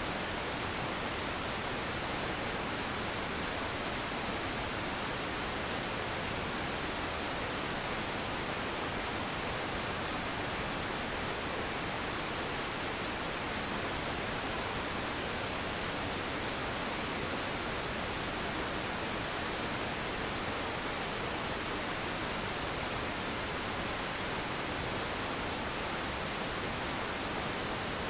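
Steady, even rushing noise of a waterfall white-noise track, unchanging, with no birdsong or other sound standing out.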